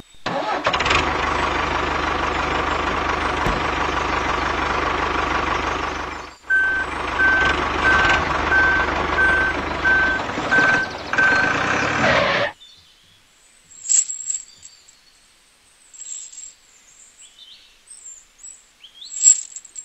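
Tractor engine sound running steadily, with a brief break about six seconds in. It returns with an even beeping like a reversing alarm, about two beeps a second, then cuts off abruptly about twelve seconds in, leaving faint bird-like chirps.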